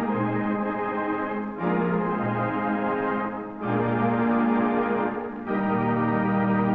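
Standaart 3/15 theatre organ playing held full chords that change about every two seconds, heard from an early-1930s 78 rpm record with dull, treble-less sound.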